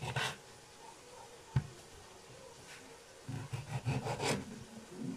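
Small knife sawing through tomatoes on a chopping board: short bouts of rubbing, scraping cuts with soft thuds of the blade meeting the board, and one sharp tap about a second and a half in.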